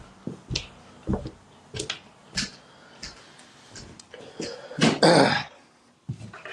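A person clearing their throat once, loudly, about five seconds in, after several short clicks and knocks.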